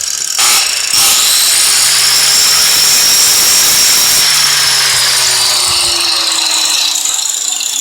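A hand-held electric power tool running under load, its high motor whine slowly falling in pitch, with a brief louder surge about half a second in.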